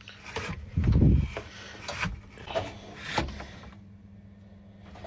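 Handling knocks, scrapes and rubbing, with a heavy low thump about a second in and lighter knocks around two and three seconds in.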